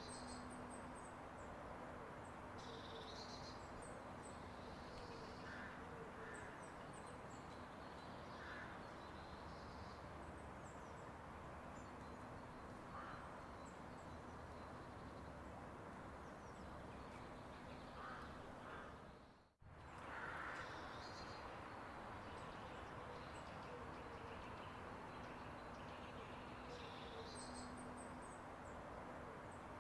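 Faint outdoor ambience: a steady background hiss with scattered distant bird calls. The sound cuts out for a moment about two-thirds of the way through.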